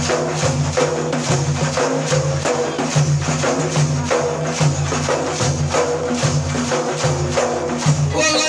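Instrumental interlude between sung verses: a steady, quick hand-percussion beat over a held low accompaniment.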